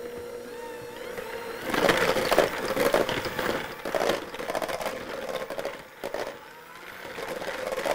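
Electric hand mixer running, its beaters whipping cream in a stainless steel bowl and breaking hardened chocolate drizzle into fine pieces. A steady motor hum, with louder, uneven churning between about two and five seconds in.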